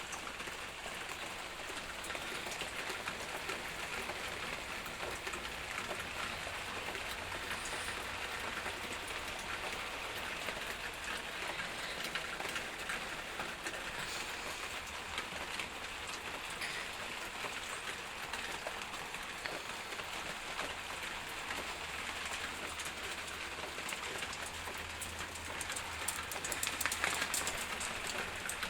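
Steady rain falling and pattering on surfaces, getting slightly heavier near the end.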